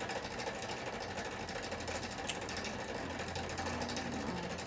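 Steady low mechanical hum of a small motor running, with a single sharp click a little past two seconds in.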